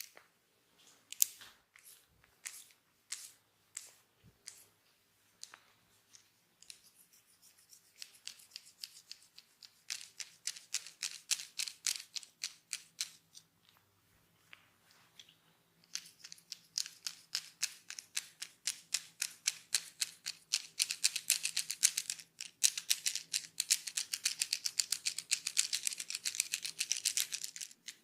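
Barber's scissors snipping rapidly in quick regular strokes, several a second. The strokes are sparse at first and then run on faster and louder from about halfway, with one short pause.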